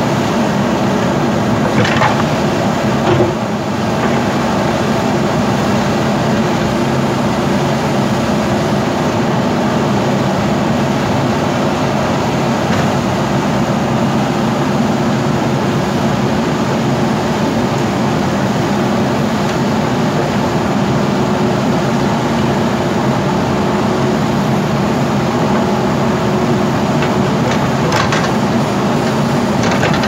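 A JCB backhoe loader's diesel engine runs steadily under load while the backhoe arm digs and dumps soil and rock. A few knocks from the bucket and falling stones come near the start and again near the end.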